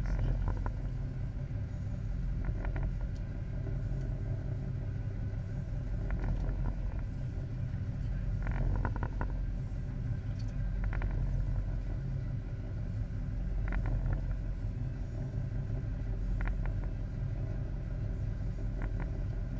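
A fishing boat's engine running with a steady low rumble, with a few short knocks or clicks every couple of seconds.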